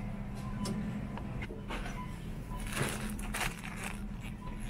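Supermarket ambience at a freezer case: a steady low hum, with scattered crinkles and rustles of frozen-food packaging being handled, busiest around the middle.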